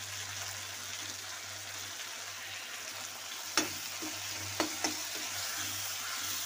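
Onion-tomato masala sizzling steadily in hot oil in a metal kadhai as ground spice powders are stirred into it. A steel spoon clinks sharply against the pan once past the middle and twice more soon after.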